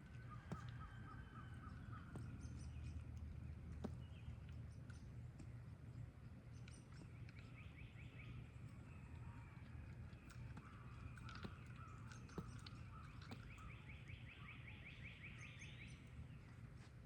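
Birds calling faintly with short rapid trills, several times, over a steady low background rumble, with a few faint clicks.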